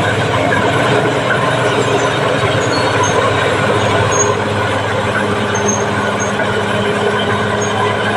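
Caterpillar D6R bulldozer's diesel engine running steadily.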